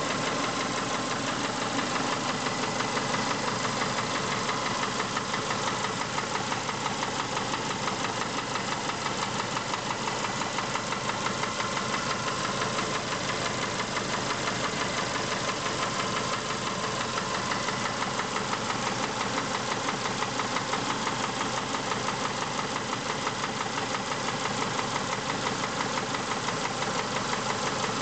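Subaru engine running steadily at idle with a rapid, even knock that keeps time with the engine: the knocking noise the owner is recording as a sign of trouble.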